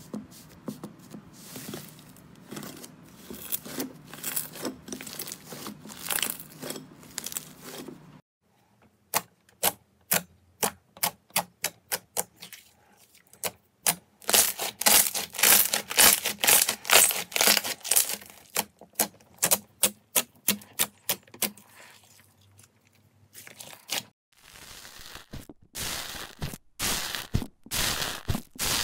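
Slime being pressed and poked with fingers and a tool: runs of quick, sharp clicks and pops, thickening into dense crackling in the middle, broken twice by short pauses.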